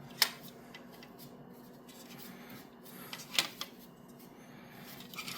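A few faint clicks and light handling noise from a small screw and screwdriver being worked against the graphics card's plastic fan frame, over a faint steady hum.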